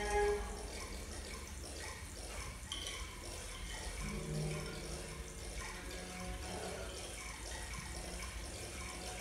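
Water-like trickling and gurgling with scattered brief tones over a steady low rumble, a little louder in the first half-second.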